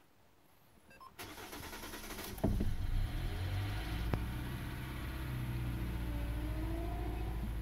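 The 2012 Hyundai Elantra's four-cylinder engine is started from inside the car. The starter cranks for about a second, the engine catches about two and a half seconds in, and it then idles steadily. A faint whine rises near the end.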